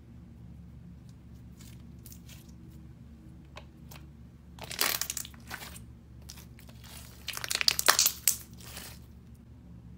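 Red slime squeezed and pressed in the hands, making dense wet crackling and popping. Faint crackles come first, then two loud bursts, one about five seconds in and a longer one from about seven to nine seconds.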